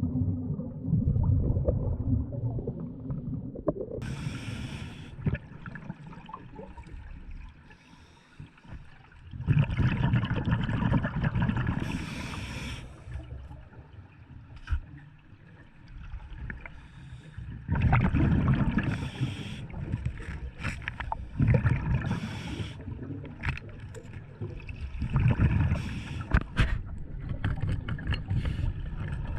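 Underwater sound of a scuba diver breathing through a regulator: bursts of exhaled bubbles gurgling past every few seconds over a low underwater rumble.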